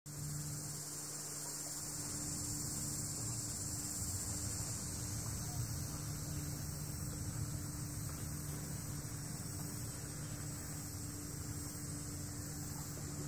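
Steady low hum made of two even tones, with a constant hiss over it.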